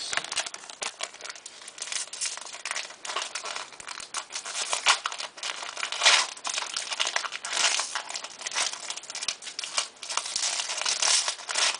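Plastic wrapper of a trading-card pack being torn open and crumpled by hand, a long stretch of irregular crinkling and crackling with louder bursts now and then.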